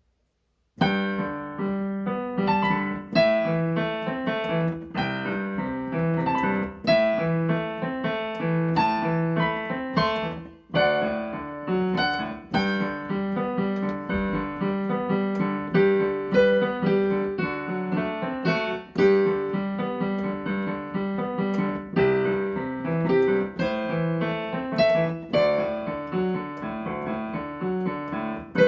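Piano playing a melody over chords, note after note with clear attacks that fade away; the playing starts just under a second in and pauses briefly about ten seconds in.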